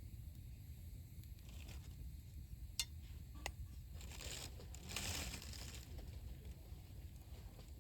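Wood campfire burning: two sharp pops a little under a second apart about three seconds in, then a couple of seconds of crackling, over a low steady rumble.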